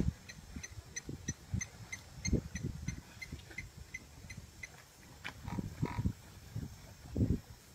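Animal grunts and low feeding noises, with a short squealing call about five and a half seconds in, over a faint high chirp repeating about three times a second.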